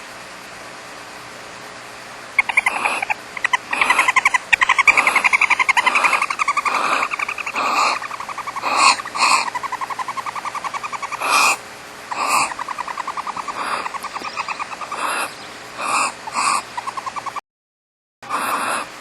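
Barn owls in a nest box making a fast, rattling chitter, broken by short harsh hissing screeches. It starts about two seconds in over a faint steady hiss and runs in bouts, cutting out briefly near the end.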